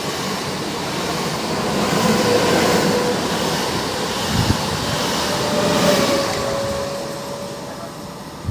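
Two coupled EN78 electric multiple units running through the station: a steady rumble of wheels on rail, with a faint whine that falls slightly in pitch in the second half as the sound eases off toward the end.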